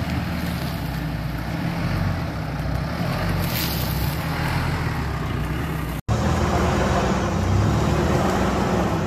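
Toyota FJ Cruiser's 4.0-litre V6 engine running steadily at low speed while off-roading. About six seconds in, the sound cuts out for an instant, then comes back slightly louder.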